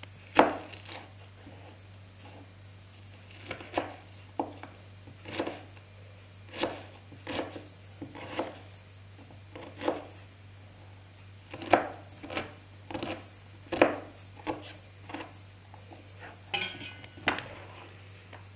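Kitchen knife chopping an onion by hand on a cutting board: sharp, unevenly spaced knocks of the blade on the board, roughly one a second. A short ringing clatter comes near the end.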